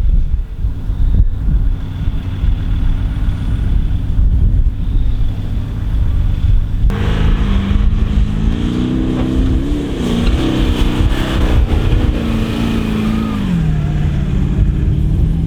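A four-wheel-drive's engine revving up and down as it drives in soft sand, over a heavy low rumble. About halfway through the engine note comes in suddenly, climbs and falls several times, then drops to a steadier lower note near the end.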